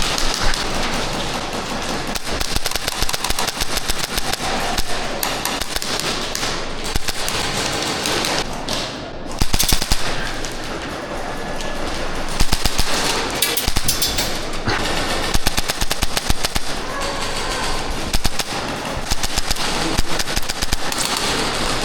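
Airsoft electric guns firing in rapid full-auto bursts, a fast rattle of shots that keeps starting and stopping, with the thickest volleys about five and twelve seconds in.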